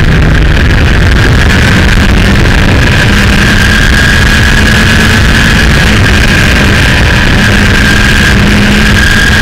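Kawasaki Ninja motorcycle riding at speed: its engine runs at steady revs under heavy wind rumble on the fairing-mounted microphone, and the engine note rises slightly near the end.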